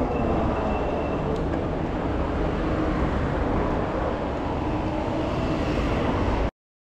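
Steady low vehicle rumble with a haze of noise, cutting off abruptly near the end.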